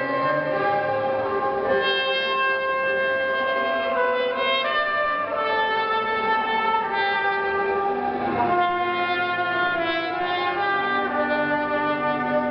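Wind instruments, clarinet among them with brass, playing a slow melody of long held notes in several parts as music for the bride's entrance.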